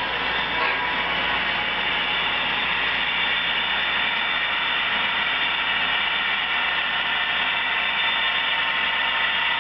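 Model train locomotive running along the track, a steady mechanical whir of its motor and gears.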